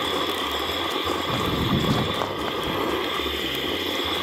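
Steady wind noise on the microphone, with an uneven low rumble from gusts.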